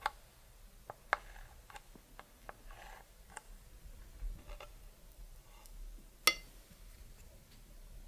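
Clear slime being mixed with makeup: scattered small sticky clicks and pops, with one sharper, ringing click a little after six seconds in.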